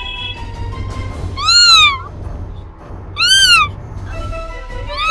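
Domestic cat meowing twice, each meow about half a second long and rising then falling in pitch, with a third meow starting near the end, over faint background music.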